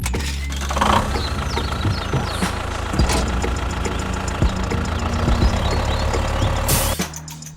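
An engine or motor running steadily with a fast pulse and a few knocks. It gives way to a short hiss and stops about seven seconds in.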